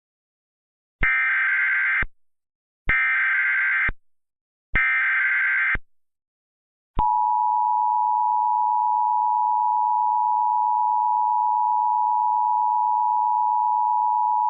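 Emergency Alert System broadcast tones: three one-second bursts of SAME header data, a screechy warbling tone, then, about seven seconds in, the steady two-tone EAS attention signal starts and holds. Together they herald a National Weather Service tornado warning.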